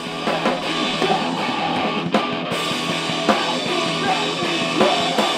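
Loud rock band playing: drum kit and electric guitar, with a vocalist screaming into a microphone over them.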